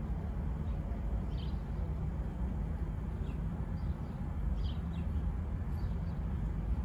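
A steady low rumble, with a handful of short, high bird chirps scattered through it.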